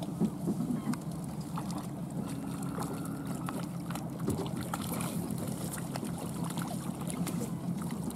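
A hooked fish splashing and thrashing at the surface of the river beside a boat, over a steady low hum from the boat.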